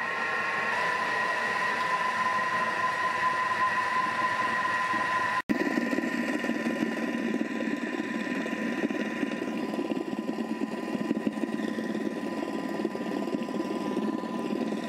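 Thermomix food processor's motor running at speed 4.5, a steady whine with a churning rush, as its blades whip a half-frozen salep ice-cream mixture to break up the ice crystals. The sound drops out for an instant about five seconds in, then goes on with a deeper churning.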